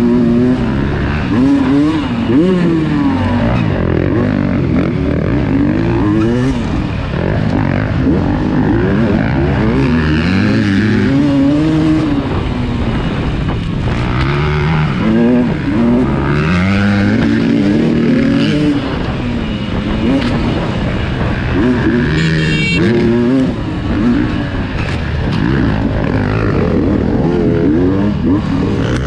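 Dirt bike engine revving up and down over and over as the rider works the throttle along a rough trail.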